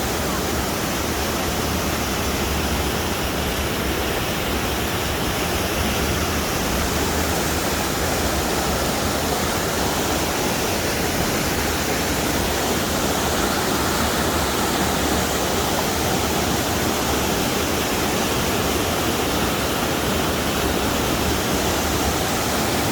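Steady rush of falling water, an even noise without surges or breaks.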